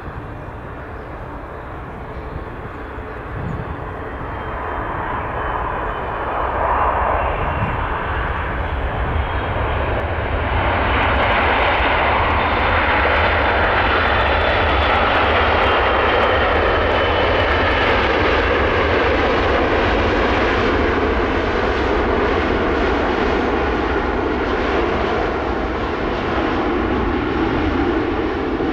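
Boeing 777-300ER's GE90-115B jet engines on landing approach: a rumble and hiss swelling over several seconds to a loud, steady level, with faint whining tones slowly falling in pitch as the aircraft passes.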